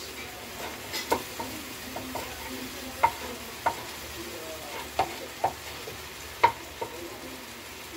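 Knife knocking on a wooden chopping board, about nine slow, uneven strokes, as spring onion is chopped by hand. Under it a steady sizzle of vegetables cooking in a frying pan.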